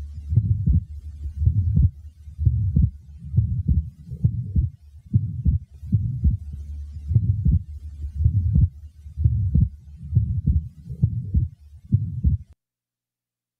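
Heart sounds from a patient with an atrial septal defect: a steady rhythm of heartbeats, each second heart sound widely split into two parts that stay fixed and do not vary with breathing, with a murmur just before it. The beats stop shortly before the end.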